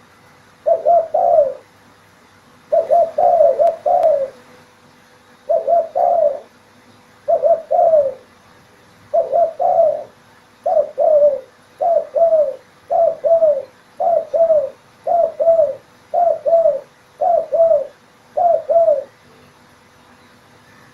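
Spotted dove cooing: about a dozen short phrases of two to four coos each. The phrases come every couple of seconds at first, then closer together, about one a second, and stop shortly before the end. A faint steady hum lies underneath.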